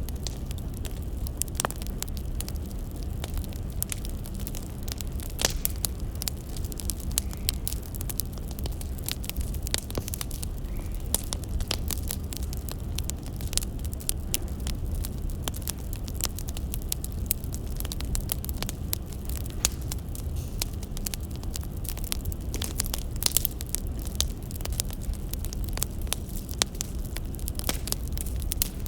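Firewood burning and crackling, with irregular sharp pops and snaps over a steady low rumble.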